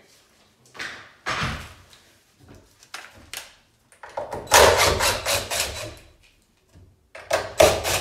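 Cordless drill/driver running in two short bursts, about halfway through and again near the end, backing out the screws that hold a latch-mortise jig to the edge of a wooden door, with some handling knocks before them. The first burst is the louder.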